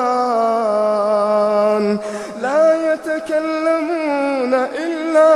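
Male Quran reciter chanting melodically in Arabic, drawing words out into long held notes, with a short break about two seconds in and the pitch gliding between notes near the end.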